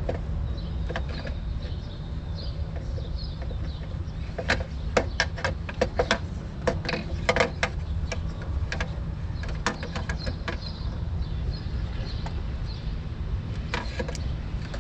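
Sharp metallic clicks and clinks of a hand tool working at the upper intake manifold of a Nissan 3.5-litre V6, in a run from about four and a half to seven and a half seconds in, again around ten seconds and near the end, over a steady low rumble.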